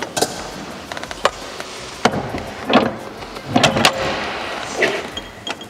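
Steel tow-ball-mounted motorcycle carrier being handled and fitted onto a car's tow ball: a series of metal knocks and clicks, several of them close together a little past the middle.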